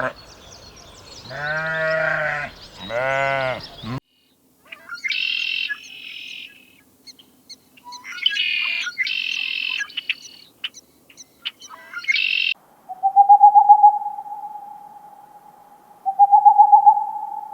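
Two bleats, then high-pitched chirping bird calls from a few seconds in. Near the end come two loud, level calls, each with a rapid pulsing.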